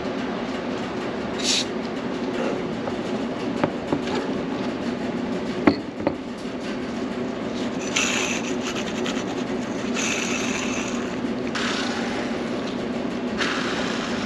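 Aerosol can of Tri-Flow lubricant hissing in short bursts as it is sprayed into go-kart axle bearings: one brief spray about a second in and four longer bursts in the second half. A few clicks and one sharp knock of parts handled on the bench come midway, over a steady low rumble.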